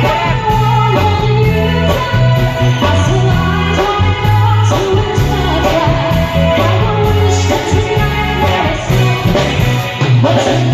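Live band playing amplified through PA speakers: a singer over electric guitar, keyboard and a heavy bass line, in an upbeat rock style.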